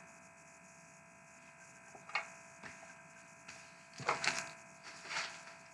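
Faint handling noises of trading cards and packs: a few soft taps and rustles about two seconds in, a small cluster around four seconds and one more near five, over a steady electrical hum.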